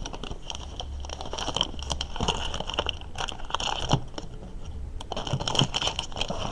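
Trading-card pack wrapper being torn open and the cards handled: irregular crinkling and short crackles throughout.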